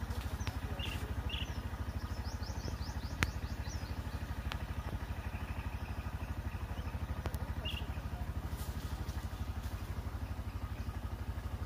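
A small vehicle engine idling, a steady rapid low putter with no change in speed. There is a single sharp click about three seconds in.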